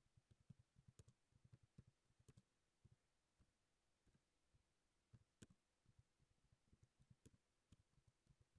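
Very faint, irregular clicking of computer keyboard keys being typed, barely above near silence.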